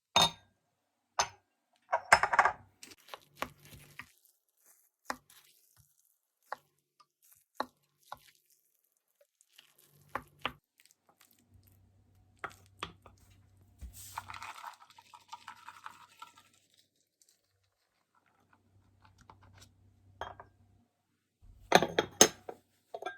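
Dishes and utensils clinking and knocking: a dozen or so separate sharp clinks spread out, with a short stretch of scraping or stirring a little past the middle and a quick cluster of louder knocks near the end.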